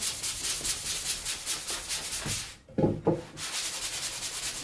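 A sanding sponge rubbed by hand in quick back-and-forth strokes, several a second, over a wooden scooter deck. The strokes stop briefly a little past halfway, where a short, louder sound is heard, and then resume.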